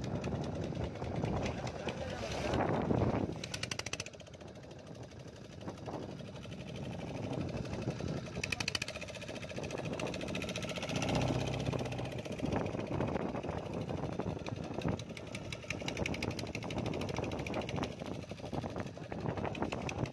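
Boat engine running with a fast, even knocking rhythm, under wind and water noise.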